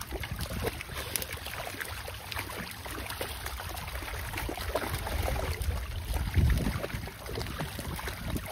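Outdoor wind rumbling on the microphone, with scattered splashes of water and small knocks.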